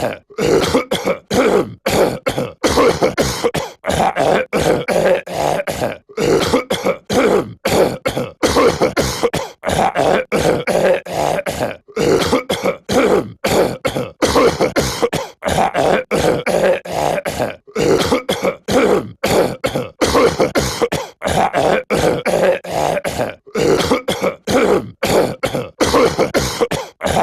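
A cartoon character's voice clearing his throat and coughing, looped over and over: short bursts several times a second with brief gaps between.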